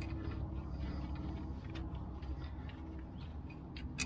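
A few faint metallic clicks from a wrench working a brake caliper's 13 mm bolt, most of them near the end, over a steady low rumble.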